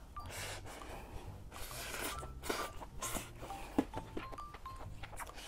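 A person eating a mouthful of hot noodles, breathing out in several short hissy huffs while chewing. Light background music with a plucked melody and a bass line plays underneath.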